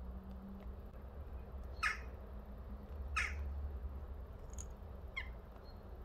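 Jackdaw giving three short calls, about a second or two apart, the last one fainter.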